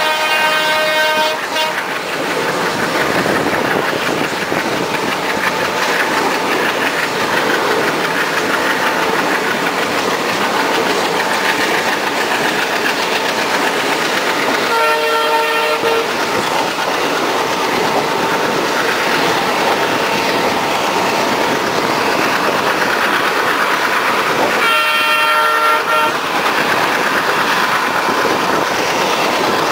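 Steady rushing and clattering of two trains running side by side: a passenger coach passing close by a freight rake of BTPN tank wagons. A multi-tone train horn sounds three times, each blast about a second long: right at the start, about 15 seconds in, and about 25 seconds in.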